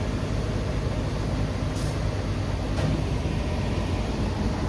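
Pickup truck engine and road noise heard from inside the cab while driving: a steady low hum, with two faint clicks near the middle.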